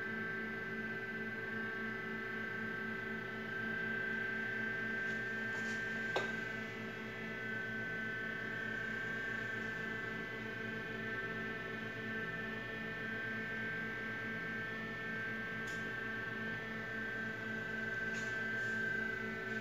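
Steady electrical hum with an even high whine over it, from mains-powered equipment, with one sharp click about six seconds in and a few faint ticks later.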